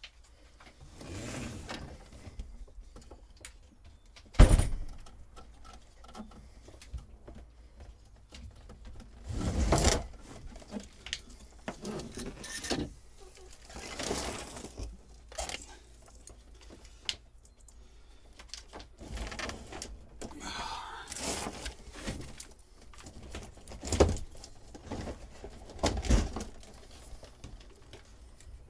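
Irregular clunks, knocks and rustling of someone handling parts and old wiring by hand, with a sharp loud knock about four seconds in.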